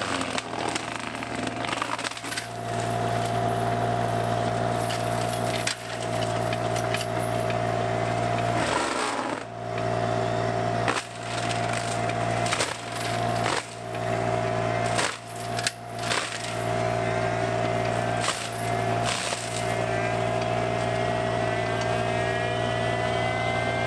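Excavator drum mulcher spinning and chewing through brush and small trees, its steady high hum over the running diesel engine of the mini excavator. The hum is broken by repeated clattering hits and short dips in pitch as the hammers bite into wood, with a rising whine near the end.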